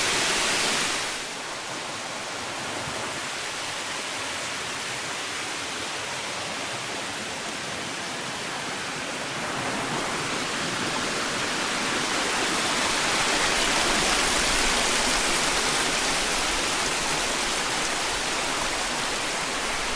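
Waterfall's rushing water, a steady even wash of noise. It drops a little about a second in and grows louder from about ten seconds in.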